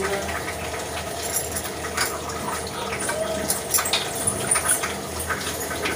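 Water running from a kitchen tap, with light clinks of utensils or dishes scattered through it.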